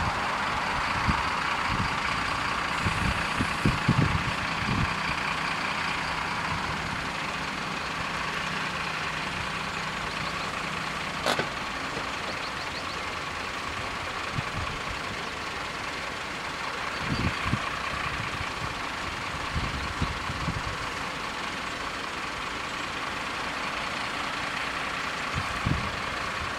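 Level crossing warning bell ringing continuously while the crossing lights flash, over the idling engines of the waiting vehicles. Irregular low thumps of wind buffet the microphone, and a single sharp click comes about eleven seconds in.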